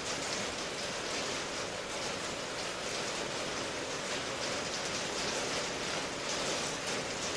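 Steady rain, an even hiss of many drops falling, with no single drops standing out.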